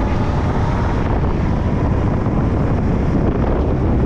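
Loud, steady wind buffeting on the microphone while the camera moves along.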